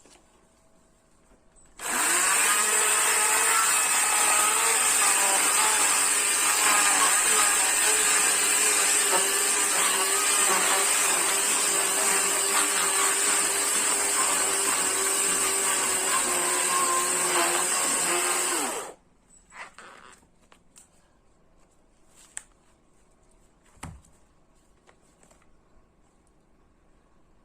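Chainsaw running at a steady pitch for about seventeen seconds, starting and stopping abruptly, with its pitch dipping slightly now and then. A few faint knocks follow.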